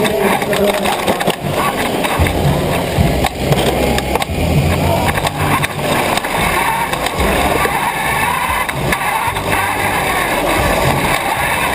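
Onboard sound of an FRC competition robot driving and turning: its drivetrain running and the frame rattling, with frequent knocks and jolts.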